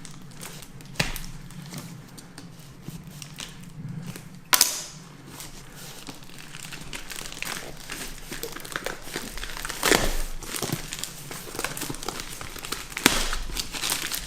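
Black wrapping paper crinkling and tearing as it is pulled off a shoebox, with many sharp crackles and rips; the loudest rip comes about four and a half seconds in.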